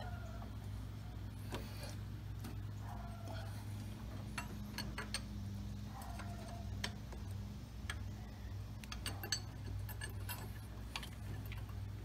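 Faint, irregular clicks and light taps of hands working among spark plug wires, hoses and metal fittings in the engine bay, over a steady low hum.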